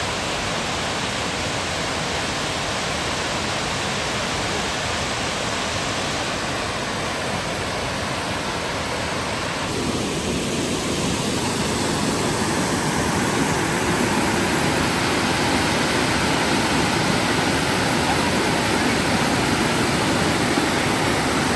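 Waterfall: a steady rush of falling water that grows louder and fuller about halfway through.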